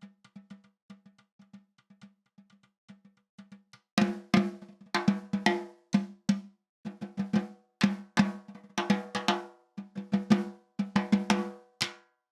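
Peace SD524MP-201 13" x 5-1/2" nine-ply maple snare drum struck with sticks: soft, evenly spaced strokes, then from about four seconds in much louder hits in quick groups and short rolls, ringing briefly after each. The playing stops just before the end.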